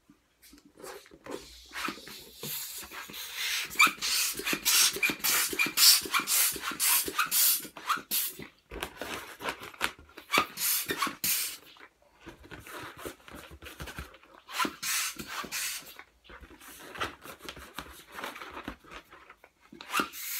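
Hand balloon pump inflating a 260 twisting balloon inside a clear 11-inch latex balloon: rapid strokes of rushing air in several runs, with short pauses between them.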